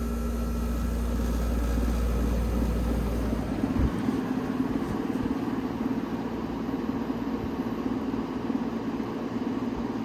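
Vintage Emerson Radio window air conditioner starting on low cool: a strong low hum, a sharp click about four seconds in, then the unit running steadily. Its fan blade is slightly out of balance from a repair modification, which makes it rattle.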